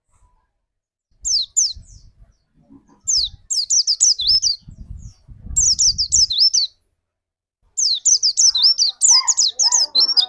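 White-eye (pleci) songbird singing in quick bursts of high, sharply falling chirps, broken by short pauses. The last burst runs longer and denser. A low rumble sits under the middle bursts.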